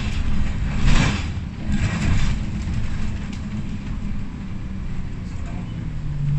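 A vehicle running with a steady low rumble, with brief hissing swells about a second and two seconds in.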